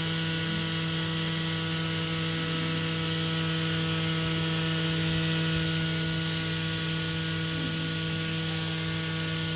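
Small electric motor of a homemade mini exhaust fan running with a steady, unchanging hum.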